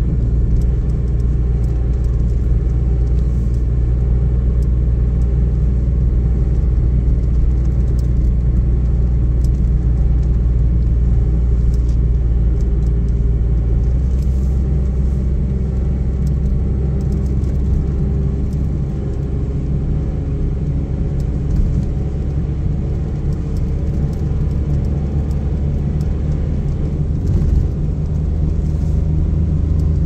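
Car driving, heard from inside the cabin: a steady low drone of engine and road noise, which shifts and eases off slightly about halfway through.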